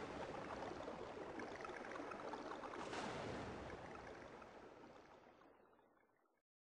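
Backing track of the title sequence: a surf-like rushing wash that swells about three seconds in, then fades out steadily to silence just after six seconds.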